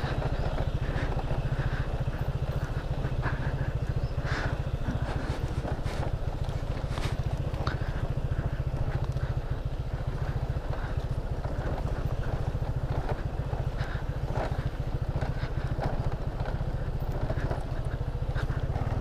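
Motor scooter engine running steadily at low speed on a rough dirt track, with scattered knocks and rattles from the bumpy ground.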